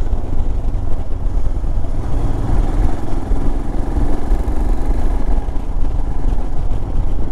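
Royal Enfield Himalayan's single-cylinder engine running steadily as the motorcycle is ridden along a road at low speed, with a deep rumble.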